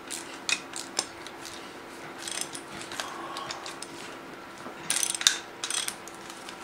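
Ratchet wrench clicking in short runs while bolts are loosened on an engine's lower intake manifold, with scattered light metal clicks and taps between the runs.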